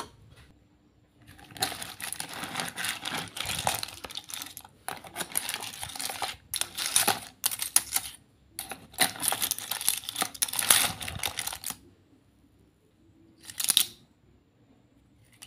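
Cooked lala clams clattering and scraping against each other and a metal ladle as they are scooped and stirred, in three stretches of a few seconds each with short gaps between them, then one brief burst near the end.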